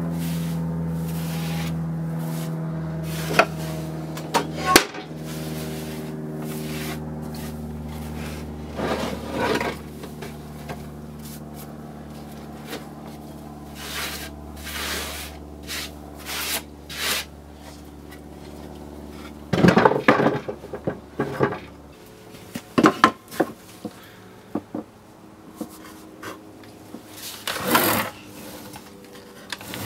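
A hand sweeping loose wood shavings across a plywood workbench: irregular rustling scrapes, with a few sharper knocks and brushes of wood. A steady hum underneath fades, and its lowest part stops about two-thirds of the way through.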